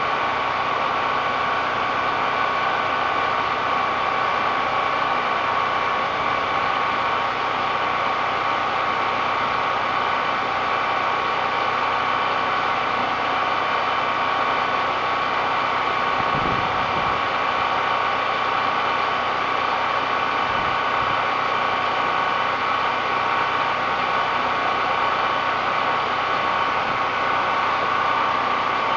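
Steady running drone of a small engine with a constant whine over a hiss, unchanging throughout; a brief low thump about sixteen seconds in.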